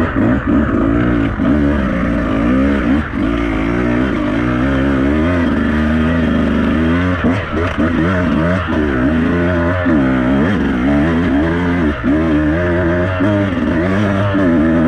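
Beta 200RR two-stroke enduro bike engine revving up and down under constant throttle changes, its pitch rising and falling every second or so as it is ridden through a section.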